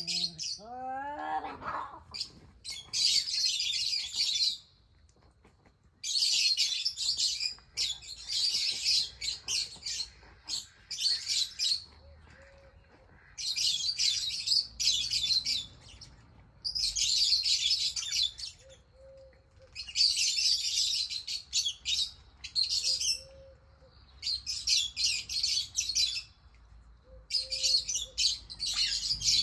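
A songbird singing repeated chattering phrases of one to two seconds each, with short pauses between them. A short, lower pitched animal cry sounds near the start.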